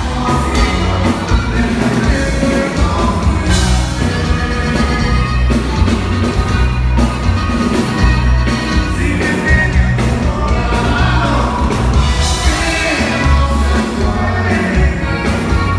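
A live band playing loud regional Mexican music: a man singing over accordion, electric bass and drum kit, with a steady bass line and regular drum hits.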